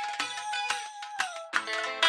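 Background music without vocals. A held note slides down about one and a half seconds in, then fuller chords come back in.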